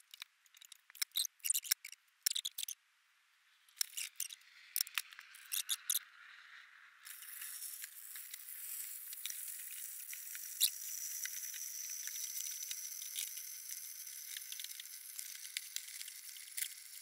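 Scattered light clicks and taps, then about seven seconds in a steady hiss of running water starts and keeps on.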